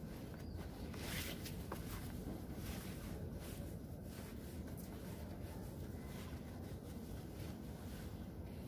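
Quiet outdoor garden ambience: a steady low background hum and noise with a few faint clicks, and no clear meows or calls.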